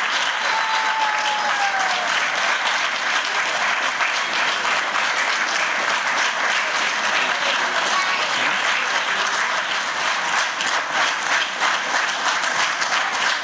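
Audience applauding steadily, a dense patter of many hands clapping, with a short falling tone rising above it about a second in.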